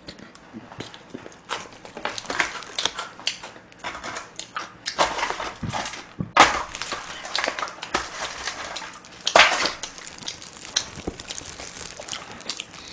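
Close-miked eating: chewing and mouth sounds, with clicks and crinkles from handling a foil food tray and chopsticks. A sharp knock about six seconds in and a louder crackle about nine seconds in.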